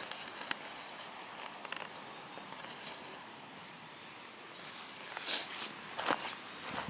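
Faint outdoor background, then footsteps on dry leaf litter and dirt, with two louder steps about five and six seconds in.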